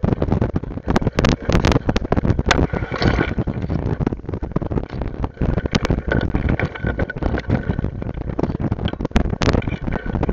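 Rough ride along an overgrown dirt trail: the camera mount jolts and rattles with many sharp knocks over a steady low rumble.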